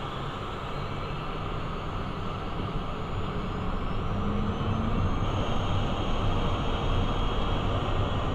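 Twin Pratt & Whitney Canada JT15D turbofans of a Cessna Citation 501 spooling up to takeoff power, heard from the cockpit. It is a steady rumble that grows louder, with a faint high turbine whine rising in pitch partway through.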